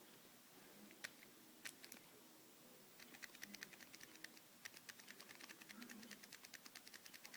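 Faint key clicks on an iWork10 tablet's keyboard: a few single keystrokes, then rapid typing over the last four seconds or so.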